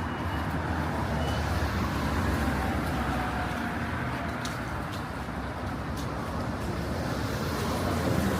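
City street traffic: cars and other vehicles running past with steady road noise and a low rumble, slightly louder near the end.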